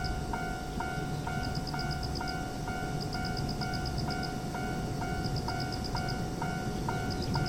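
Railroad crossing warning alarm ringing, a single pitched ding repeated about twice a second, which signals a train approaching and the crossing closing.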